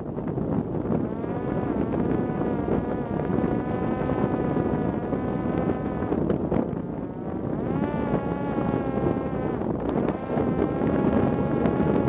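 Parrot Disco's electric motor and pusher propeller running with a steady high whine over a rumble of rushing air. The pitch sags and recovers a few times: near the start, around the middle, and again about ten seconds in.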